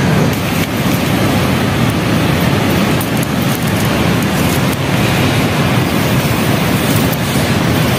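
Rushing stream water, a loud steady rush with no break.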